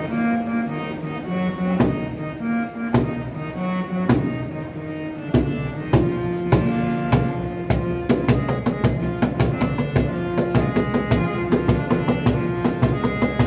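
Instrumental opening of a song: held melodic notes with a few scattered drum hits, then a steady drum-kit beat comes in about five seconds in and grows busier with fast strokes from about eight seconds.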